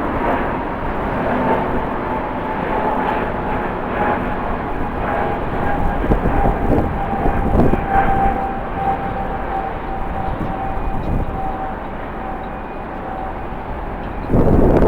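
Jet airliner engines running, with a thin whine that slowly falls in pitch. Near the end a louder burst of wind noise hits the microphone.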